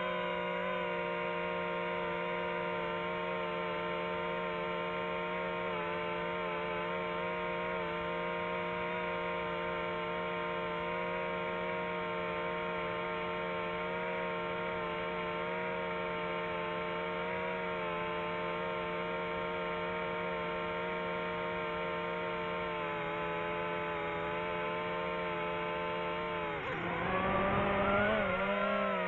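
Quadcopter drone's electric motors and propellers buzzing steadily in flight. Near the end the pitch dips and then climbs and the buzz briefly gets louder as the drone banks hard.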